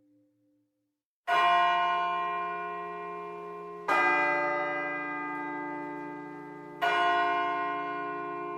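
A bell struck three times, about every two and a half to three seconds, each stroke ringing on and slowly fading before the next.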